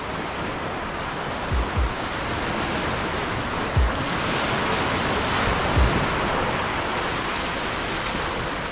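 Small waves breaking and washing up a sand beach, the surf swelling to its loudest about halfway through and then easing. A few short low thumps sound through it.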